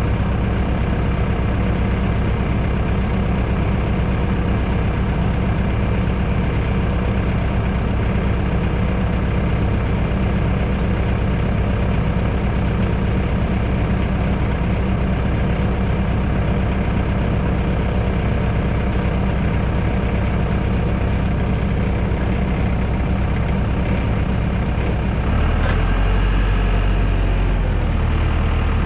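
Heavy-equipment engine running steadily, a little louder and deeper in tone near the end.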